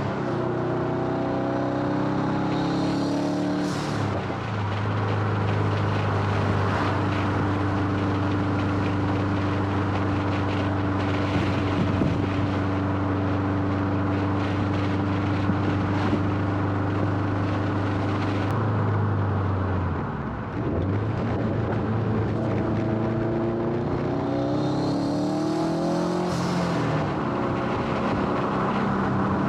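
Turbocharged flat-four engine of a 420 hp Subaru STI under way. It revs up through a gear near the start, then holds a steady pitch for about fifteen seconds. It dips briefly around twenty seconds in, as at a gear change, and climbs again near the end.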